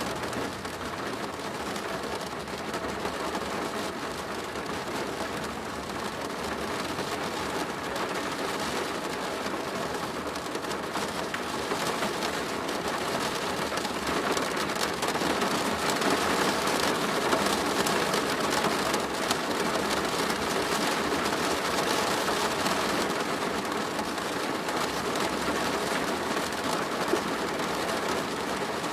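Steady rain falling on a plastic roof, a dense patter of drops that grows a little louder about halfway through.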